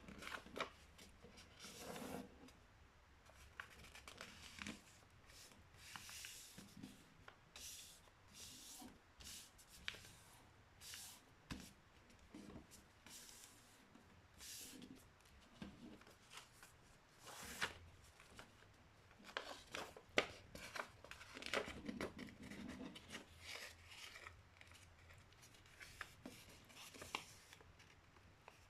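A sheet of printer paper being handled and folded: irregular rustles and crinkles with sharp little snaps as folds are pressed in.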